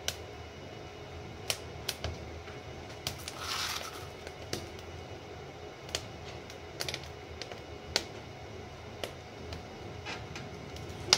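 Softwood fire crackling inside a closed wood stove: irregular sharp pops every second or so, with a brief hiss about three to four seconds in.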